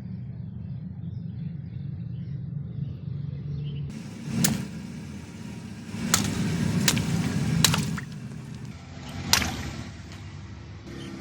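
A car rolling slowly with its engine running, while the tyre crushes objects with five sharp cracks over the span.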